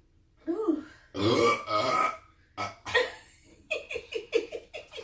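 People belching loudly: a short burp about half a second in, then a longer one lasting about a second. Shorter bursts follow, and then a quick string of short sounds, about six a second, near the end.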